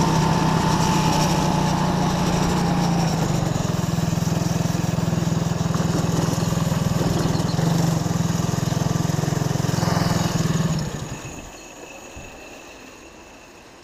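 RX-250 go-kart engine running steadily at low revs as the kart rolls slowly, with a faint falling whine in the first few seconds. About eleven seconds in the engine sound drops away, leaving only faint background noise.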